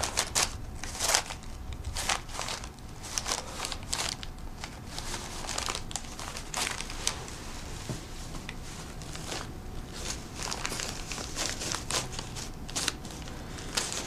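Irregular crinkling and rustling, as of paper or plastic being handled, in short scrapes several times a second.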